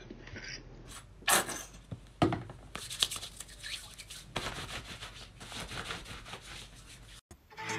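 Faint rustling and short scratchy handling noises, hands and clothing moving close to the phone microphone, with two sharper ones about a second and two seconds in.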